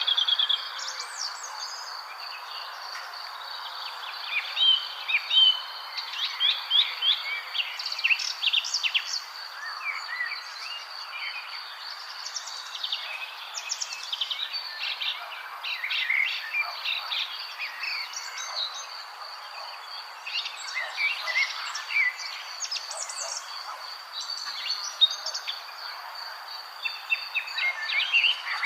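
Many songbirds chirping and singing at once, short overlapping calls and trills, over a steady high-pitched insect drone and a soft background hiss.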